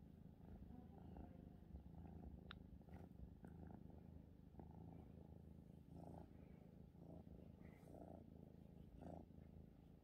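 Kitten purring faintly and steadily, with soft swells every second or so.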